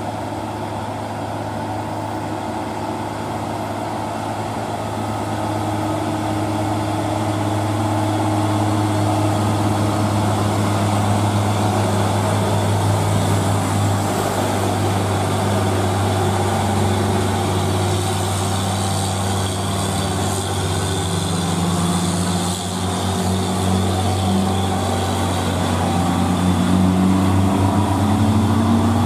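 Diesel engine of a sand-laden Hino dump truck pulling up a grade as it passes, a steady low engine note that grows louder partway in.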